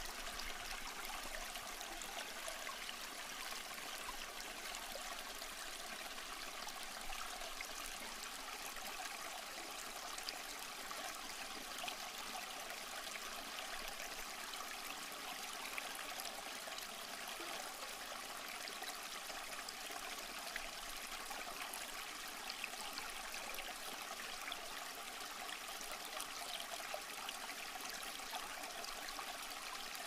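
Small aquarium's filter outflow trickling steadily into the tank water, a constant gentle splashing hiss without pause.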